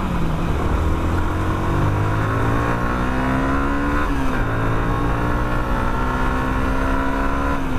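Yamaha R15 v2's 149 cc single-cylinder four-stroke engine pulling away under acceleration, its pitch climbing. The revs drop at an upshift about four seconds in, then climb slowly again.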